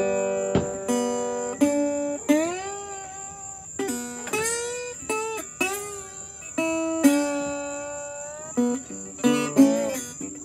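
Guitar played solo in a bluesy boogie: plucked single notes and chords, several of them bent or slid upward in pitch.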